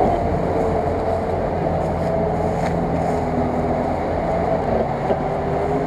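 GAZ-66 off-road truck's V8 engine running steadily under load as the truck wades through deep muddy water, with water churning around the wheels.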